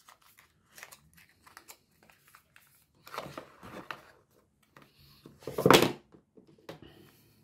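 Cardboard and paper packaging being handled: small clicks and rustles, a denser rustle about three seconds in, and a short, louder rustle of card just under six seconds in as the box's inner tray is lifted out.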